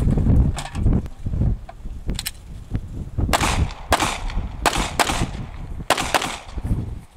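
A string of handgun shots in a practical-shooting stage, the loudest from about three seconds in, several fired in quick pairs. A low rumble comes before the shots in the first second or so.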